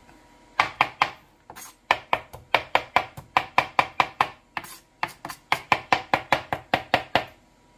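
Kitchen knife chopping fresh cilantro on a plastic cutting board: quick, even knocks of the blade on the board, about five a second, with two short breaks.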